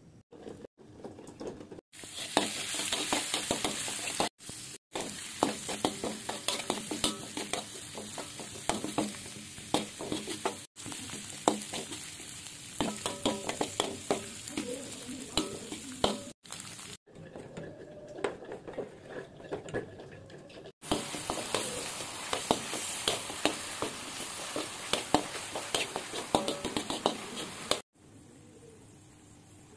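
Shallots, garlic and minced chicken sizzling in a hot wok, with a spatula stirring and clicking sharply against the pan. The sizzle breaks off abruptly several times.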